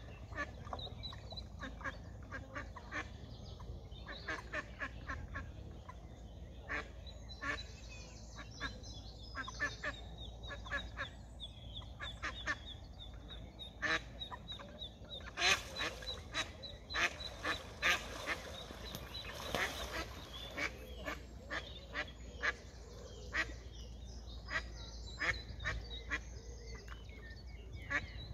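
Ducks quacking in a long run of short, repeated calls, loudest and most crowded around the middle.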